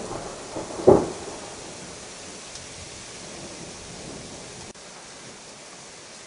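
Steady hiss of soft hail and sleet falling in a thunderstorm, with a short, loud clap of thunder about a second in. Just before five seconds the sound drops suddenly to a quieter, even hiss.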